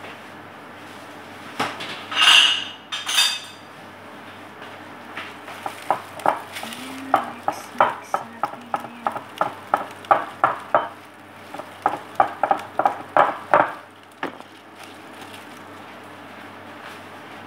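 A utensil stirring and beating thick donut batter in a bowl, clinking against the bowl's side in quick, regular strokes about three a second, with a short break before a final run. Two short, louder scraping sounds come about two seconds in.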